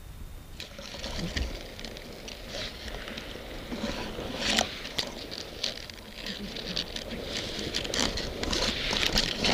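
Grass and heather rustling and crackling close against the camera's microphone as it is moved through the vegetation, a dense run of small irregular crackles that starts about half a second in and grows busier near the end.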